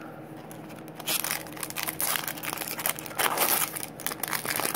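Foil wrapper of a Pokémon trading-card booster pack crinkling and tearing as it is ripped open by hand: a dense run of crackles that starts about a second in.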